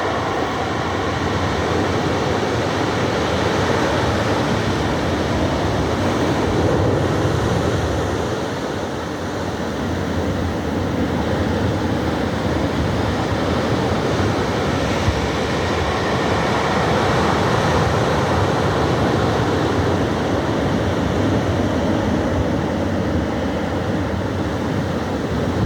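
Pacific Ocean surf washing onto the shore in a continuous, steady rumble of calm waves, easing briefly about nine seconds in.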